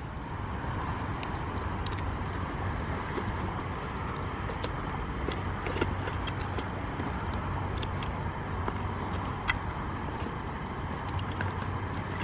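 Steady hum of road traffic in the background, with scattered light clicks and rattles from fishing tackle being handled in a rod bag.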